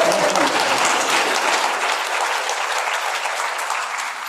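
Congregation applauding: dense clapping that thins out and fades toward the end.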